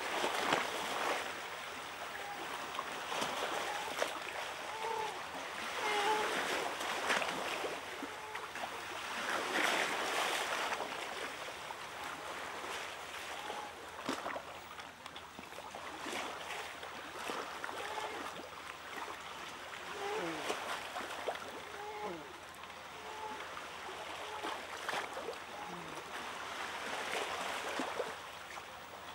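Shallow water washing and splashing over a sandy edge as small waves run in and a spotted seal pup swims through them. Short pitched calls come every second or two over the water.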